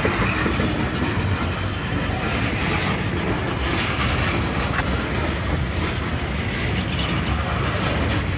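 Freight train cars rolling past, a steady rumble of wheels on rail with a faint clickety-clack.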